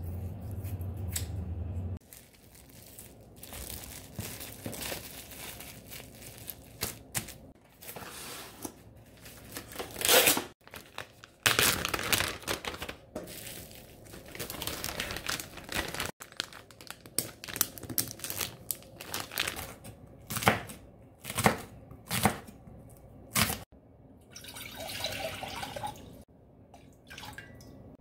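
Plastic wrap being handled: irregular bursts of crinkling and tearing, loudest about ten to thirteen seconds in. A low steady hum runs for the first two seconds before it.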